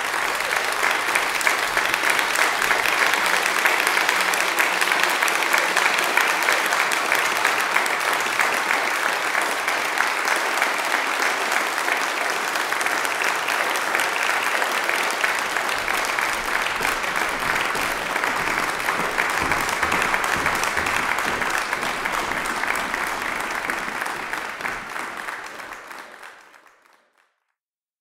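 Audience applauding steadily, fading out near the end.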